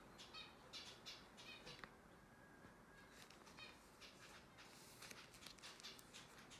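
Near silence: faint room tone with soft, short high-pitched sounds scattered through it.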